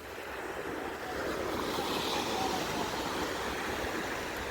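Ocean surf and wind making a steady rushing noise, which swells in about the first second and then holds.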